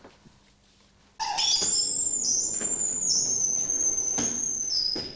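A high, steady whistling tone over a hiss starts suddenly about a second in, holds for about four seconds, dips a little in pitch near the end and cuts off.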